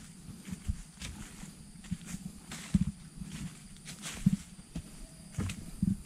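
Footsteps on a dirt trail covered in dry fallen leaves: an uneven tread of about two steps a second, each a dull thud with a crisp rustle of leaves.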